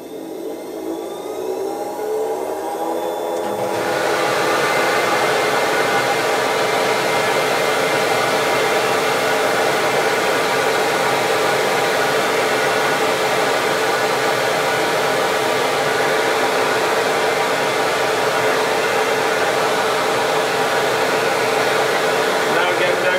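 CamVac CGV336-4 twin-motor dust extractor starting up: a rising whine as it spins up, then the rushing noise jumps louder about four seconds in. After that it runs steadily at full twin-motor suction.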